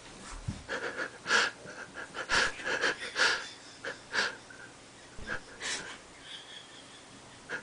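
A run of short, sharp, breathy sneezes, the loudest coming about a second apart.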